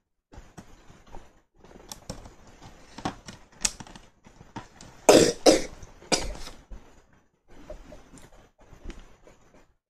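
Small building pieces being handled and pressed together, with scattered clicks and knocks and a louder cluster of bursts about five seconds in.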